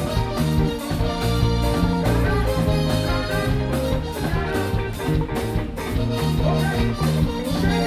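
Live band playing a soca song: a drum kit keeping a steady beat under bass, keyboards and electric guitar.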